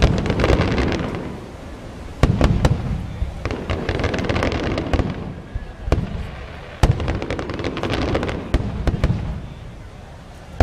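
Aerial fireworks going off: a run of loud bangs with deep rumble, the biggest about two and seven seconds in. Each bang is trailed by a long spray of crackling.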